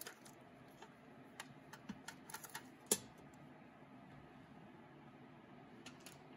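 Light clicks and taps of foil-covered ramekins being set down on a wire rack inside a stainless steel pressure-cooker pot, in a loose scatter with the loudest knock about three seconds in and a couple more clicks near the end.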